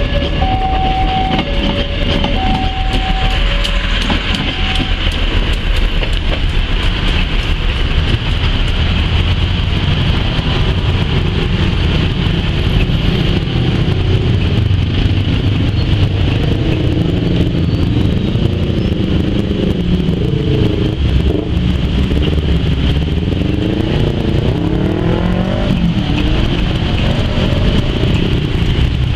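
A level-crossing alarm chimes in two alternating tones, high and low about once a second, over the rumble of a passing train, dying out a few seconds in. After that a diesel railcar's engine runs and revs, its pitch rising and falling in the second half.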